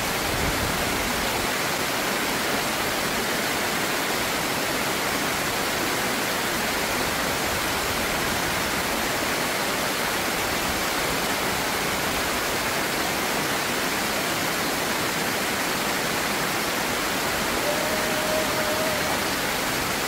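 Stream water rushing over a low concrete weir: a steady, even rush of falling water.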